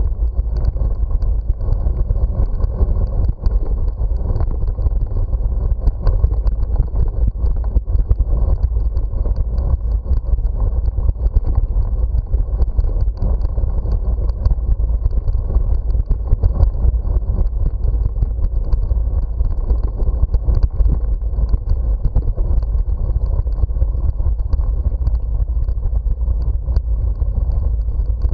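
Steady wind rumble on the microphone of a moving bicycle, mixed with the rattle of tyres over brick paving, which shows as many small knocks.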